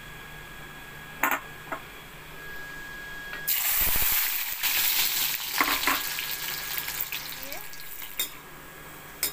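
Ginger and garlic pieces going into hot oil in a metal kadhai: a sudden loud sizzle about three and a half seconds in that settles into steadier frying. A few short clicks come before and during it.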